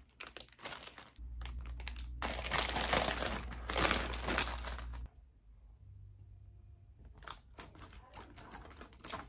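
Clear plastic florist sleeve crinkling and rustling as it is pulled off a bunch of hydrangeas, loudest a couple of seconds in. Near the end come a few sharp snips of scissors cutting the flower stems.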